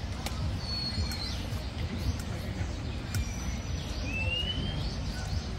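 Outdoor ambience: a few short, thin bird whistles, one rising about four seconds in, over a steady low rumble, with a couple of light sharp clicks.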